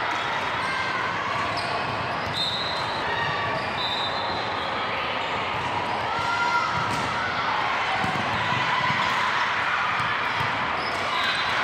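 Indoor court game sounds: a basketball bouncing, sneakers squeaking in short high chirps, and voices in the background, echoing in a large hall.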